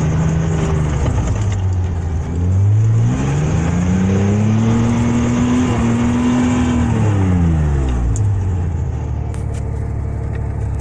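Logging truck's engine under way: its revs dip, climb steadily for a few seconds, hold, then fall back about eight seconds in to a low, steady run.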